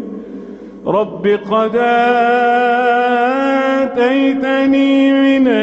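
A male reciter chanting the Quran in Arabic in a melodic, drawn-out style. After a fading echo in the first second, the voice comes in with a rising glide and holds long notes with wavering ornaments.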